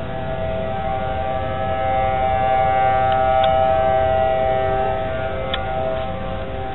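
Outdoor civil-defense warning sirens sounding a severe-weather alert: several steady tones held together, swelling to their loudest around the middle and then easing off, as a rotating siren sweeps past.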